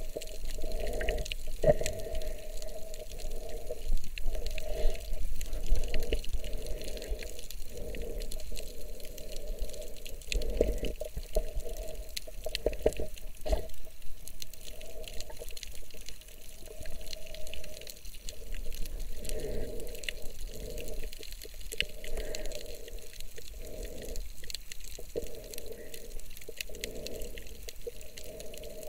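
Muffled underwater water noise, sloshing and bubbling in uneven surges, with a few sharp clicks.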